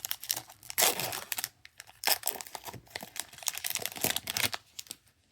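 Foil wrapper of a Topps Chrome Update jumbo card pack crinkling and tearing in irregular bursts as it is ripped open and handled, stopping just before the end.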